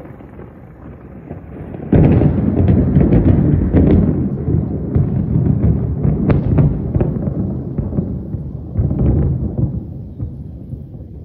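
Thunder: a low rumble builds, then breaks into a sudden loud clap about two seconds in that rolls on with sharp crackles, swells again near the end and fades.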